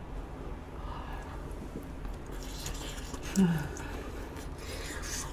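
Quiet eating sounds: faint clicks and rustles of utensils and food, with one brief low hum, falling in pitch, about three and a half seconds in.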